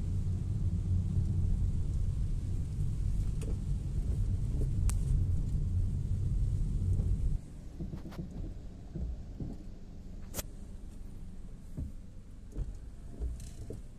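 Car cabin noise in heavy rain: a loud low rumble of road and rain noise that drops abruptly about seven seconds in to a quieter hum, with a few sharp ticks scattered through.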